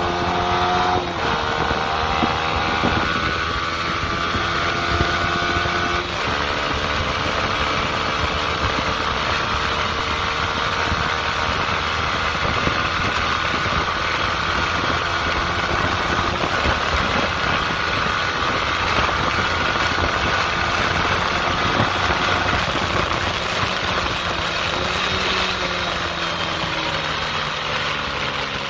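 Yamaha R15 V3's single-cylinder 155 cc engine accelerating at full throttle. Its pitch rises and drops back at each upshift during the first six seconds. It then runs at high revs near top speed under heavy wind noise, and eases off with falling pitch near the end.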